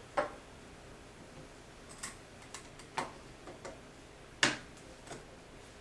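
Irregular light clicks and taps of a screwdriver and small screws against a hard-drive caddy as a laptop hard drive is screwed into it, about eight clicks, the loudest about four and a half seconds in.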